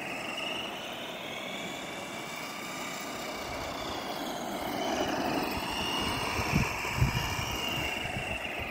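HSP Verdikt 1/10-scale 4WD RC rock racer's stock brushed electric motor and gears whining as it drives on asphalt, the whine drifting up and down in pitch with the throttle over a steady rushing noise. Two short low thumps come about six and a half and seven seconds in.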